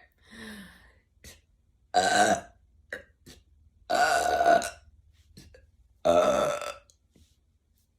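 A woman belching three times, each loud burp lasting under a second, about two seconds apart.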